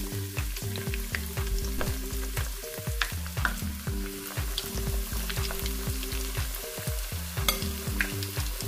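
Battered chicken drumsticks deep-frying in hot oil in a stainless steel pot: a steady sizzle with many scattered sharp crackles.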